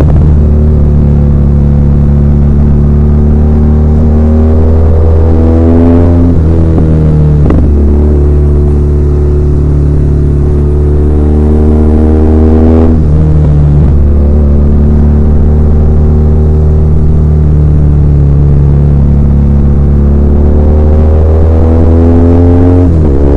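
BMW R1200R's air/oil-cooled flat-twin boxer engine pulling under way, with no wind noise. Its note rises slowly over long stretches, broken by sharp changes in pitch about six, seven and a half, thirteen and twenty-three seconds in, which fit gear changes with throttle blips.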